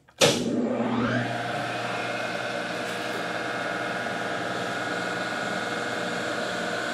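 Rockford hydraulic milling machine starting up: its electric motor and hydraulic pump come on suddenly and whine up to speed over about a second, then run steadily with a hum and whine. The hydraulic system has not yet been bled of air.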